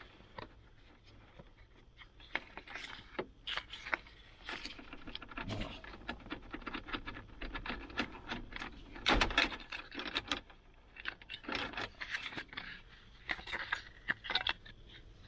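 Plastic case of a speedometer calibration module being handled and pried open by hand: irregular clicks, taps and scraping of plastic, with a louder cluster of clicks about two-thirds of the way through.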